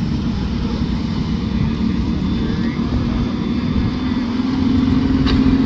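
Kid karts' small Comer two-stroke engines buzzing steadily as they lap the dirt track, one growing louder as it approaches near the end.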